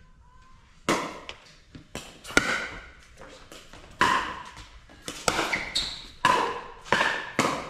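Pickleball paddles hitting the ball back and forth in a rally: about seven sharp pops, roughly one a second, some with a short ring.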